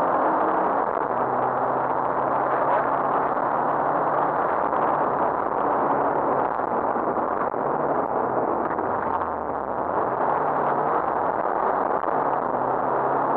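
Rally car driven hard on a special stage, heard from inside the cabin: steady engine note over dense road noise. About nine seconds in the engine pitch drops and the sound dips briefly before it picks up again.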